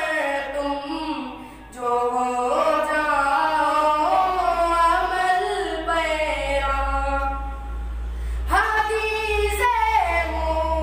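A boy singing an Urdu nazm solo and unaccompanied, in long held notes that slide between pitches. He breaks off briefly for a breath about a second in and resumes just under two seconds in.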